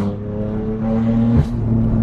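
BMW M4 F82's twin-turbo S55 inline-six through a straight-piped AWE track exhaust, accelerating with its pitch rising, then breaking sharply about one and a half seconds in at a gear change before the engine note settles.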